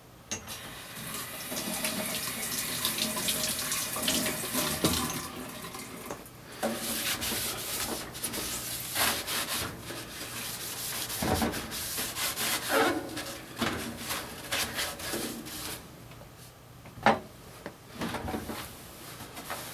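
Water running and splashing in a washing machine tub, uneven, with scattered small knocks.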